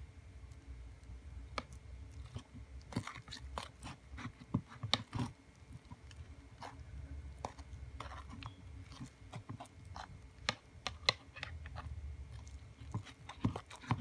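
Slime full of fishbowl beads being stirred with a spoon: irregular crunchy clicks and crackles as the beads rub and pop in the sticky mix.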